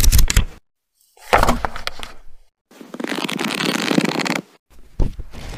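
Sound effects for an animated title sequence: a few short, noisy hits with silent gaps between them, the second with a quick run of clicks, then an even hiss-like stretch of about two seconds and one more short hit near the end.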